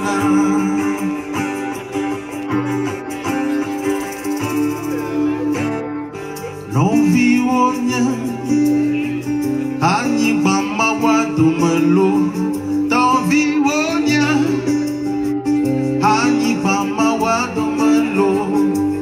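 Live acoustic band music: strummed acoustic guitar with a man singing at the microphone, louder from about seven seconds in.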